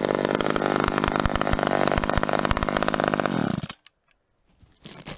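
Chainsaw engine running steadily at high revs, then its pitch drops and it stops abruptly a little over three seconds in. A few faint knocks follow near the end.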